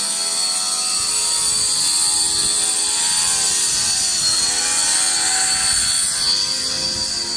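Hand-held electric marble saw with a diamond blade cutting through a marble countertop slab: a steady high-pitched whine that wavers slightly as the blade works through the stone.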